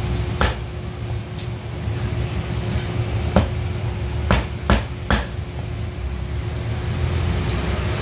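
Cleaver chopping grilled pork belly on a thick wooden chopping block: a sharp chop about half a second in, then four more in quick succession between about three and a half and five seconds in, over a steady low background rumble.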